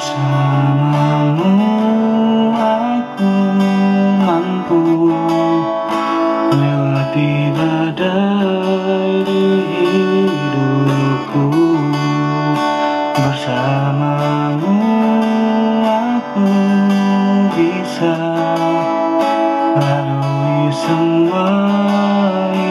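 Guitar-led instrumental music playing continuously, a held and gliding melody over a stepping bass line.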